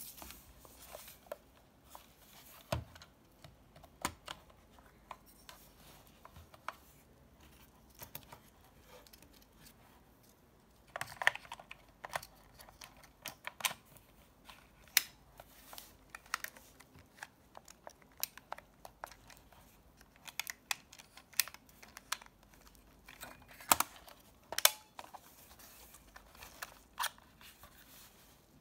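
Hands handling a plastic compact 35mm film camera, a Minolta F10BF: scattered clicks, taps and light rubbing of its body and hinged film door, with a busier run of clicks about eleven seconds in.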